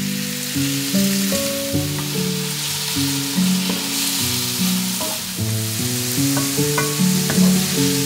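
Diced tomato, celery and onion sizzling as they fry in a pan and are stirred with a wooden spatula, with a few light clicks of the spatula. A melody of sustained notes plays over it as background music.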